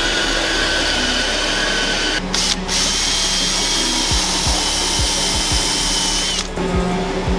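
Makita cordless drill-driver running steadily with its bit in the edge of a pine board, then stopping about six and a half seconds in with a short fall in pitch. Before it, a different steady high machine whine cuts off about two seconds in.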